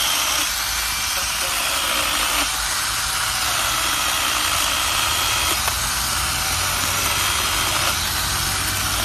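Kingson battery-powered mini electric chainsaw running and cutting tree branches: a steady high motor whine with the chain rasping through wood, its pitch shifting a little as the load changes.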